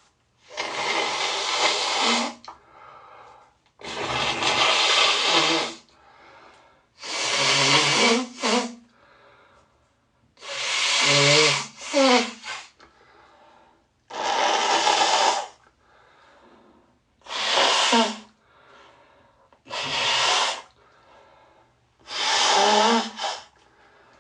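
A person blowing their nose hard and wet, eight forceful blows about every three seconds, each ending in a short honk.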